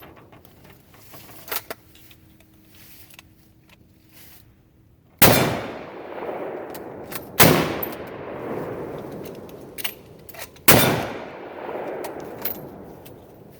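Three loud rifle shots, about two to three seconds apart, each followed by a long rolling echo. A couple of fainter sharp cracks come before and after them.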